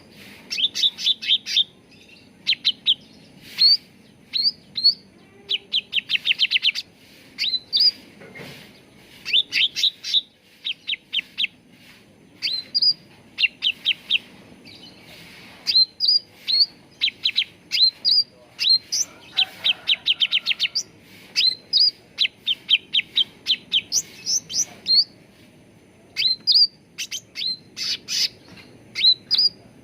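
A cucak ranting leafbird singing in rapid trains of short, sharp chirps, mixed with single up-flicked whistled notes. The song comes in bursts separated by short pauses.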